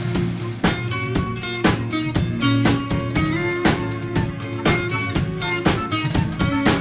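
Gospel band playing an instrumental passage: guitar and drum kit keeping a steady beat.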